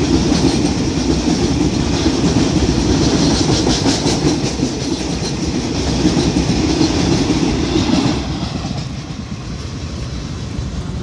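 Container freight train passing close by, its flat wagons' steel wheels rolling and clattering on the rails in a loud steady roar. About eight seconds in the sound drops off as the last wagon goes by and the train moves away.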